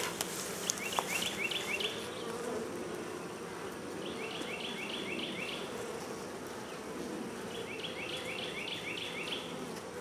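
Honey bees humming steadily on a brood frame lifted out of an open Langstroth hive. A short run of rapid high chirps comes three times over the hum.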